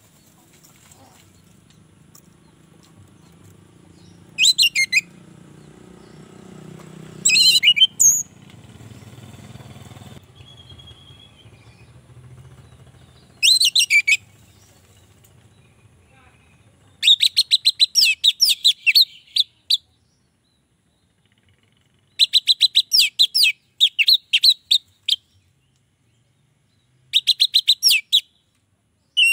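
Orange-headed thrush (anis merah) singing: a few short, loud phrases in the first half, then three runs of rapid repeated notes in the second half.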